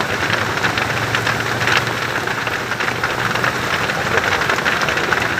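Steady rain falling and pattering on surfaces, a continuous hiss made of many small drop ticks, with a faint low hum underneath.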